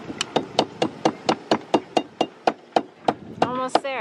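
Hammer striking a metal chainplate in quick, even blows, about five a second, to drive the stuck chainplate out of the deck. Each blow rings briefly. The hammering stops a little before three seconds in, and a voice is heard near the end.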